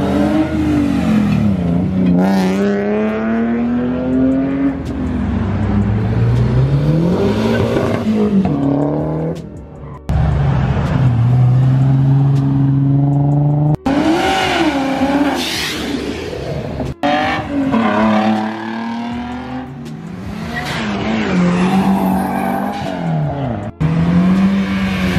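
Car engines revving and accelerating hard, their pitch climbing and dropping repeatedly through the gears. The sound breaks off abruptly several times between passes.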